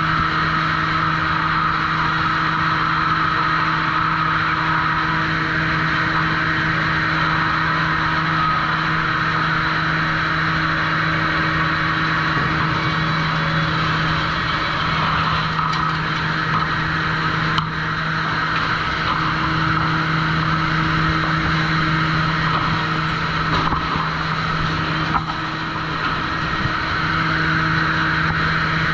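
Sawmill machinery running steadily with a constant hum, and a couple of sharp knocks past the middle.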